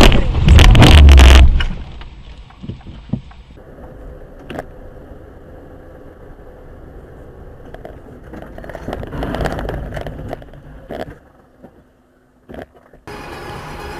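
Vehicle noise from dashcam recordings. A very loud, overloaded burst of noise fills the first second and a half, then quieter car and road noise follows with a few sharp clicks.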